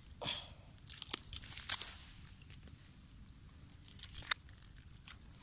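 Grass and dry leaves rustling and crunching, then a hand digging into wet clay on a creek bank: scattered crackling clicks, loudest about one and a half seconds in.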